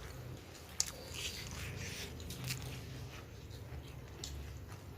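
People chewing and eating a meal of pork, mustard greens and rice, with soft wet mouth and crunching sounds and a sharp click about a second in.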